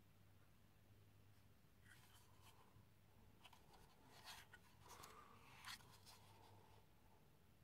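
Near silence with faint handling noises: a small plastic plug-in Wi-Fi range extender rubbed and clicked in the fingers as it is turned over and its antenna touched. A few soft clicks come in the middle seconds.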